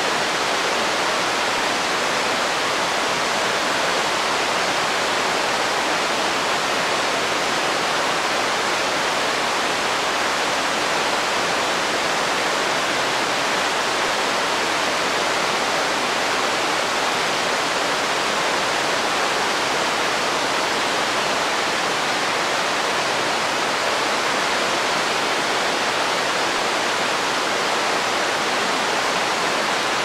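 Waterfall rushing steadily, an even hiss of falling water with no breaks or changes.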